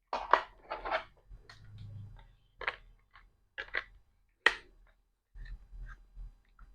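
Sharp, irregular clicks and knocks of small laptop hardware being handled: a solid-state drive being fitted into a plastic hard-drive caddy. A brief low hum comes about two seconds in.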